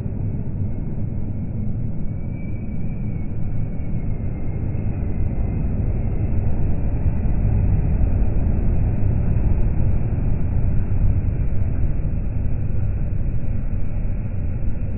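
Motorway traffic rumble, swelling in the middle as a Renault articulated lorry passes close by.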